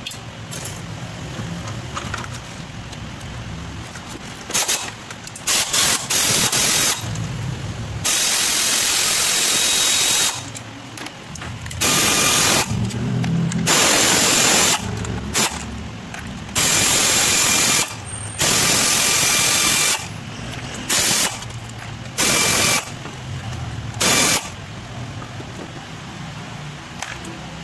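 Pneumatic air ratchet running in about a dozen hissing bursts of half a second to two seconds, with pauses between, as it loosens the valve cover bolts on a Toyota Vios engine.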